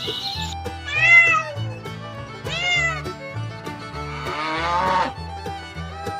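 Domestic cat meowing twice, each meow rising and falling, then a longer, rougher call about four seconds in, over steady background music.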